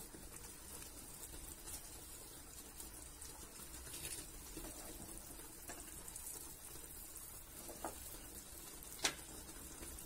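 Faint steady hiss of a pot of brine heating toward the boil, with a few light clicks and one sharper click about nine seconds in.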